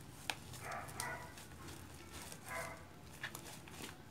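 Fluffy shaving-cream slime being stretched and kneaded by hand, giving a few faint sticky clicks. Two faint, short pitched sounds come in the background, about a second in and again near three seconds.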